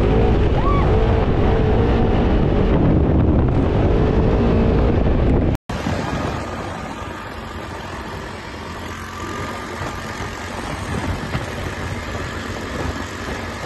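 Polaris RZR side-by-side's engine running under way over sand, loud and close, heard from the driver's seat. After a sudden cut about five and a half seconds in, a quieter, steadier vehicle engine sound takes over.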